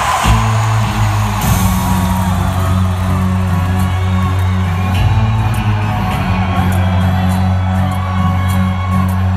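Live pop concert music heard from within an arena crowd: deep sustained bass chords come in just after the start and hold, with crowd screams and whoops over them.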